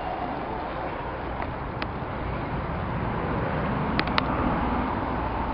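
Steady outdoor background noise, a continuous rumble and hiss, with a few brief sharp clicks about two and four seconds in.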